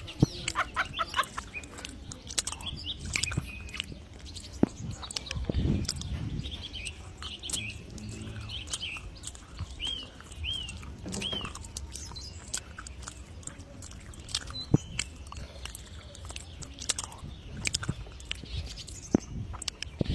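A bird chirping in short, repeated calls, three in quick succession midway, with scattered clicks and knocks.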